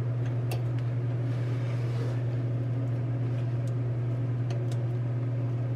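Steady low machine hum, with a few faint metallic clicks as a pry bar shifts a Ford 8.8 differential carrier in its axle housing.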